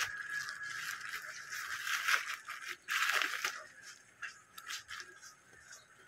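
Black plastic bag rustling and crinkling as a plastic-wrapped parcel is pulled out of it and handled. It is loudest around two and three seconds in, then turns to lighter rustles and clicks.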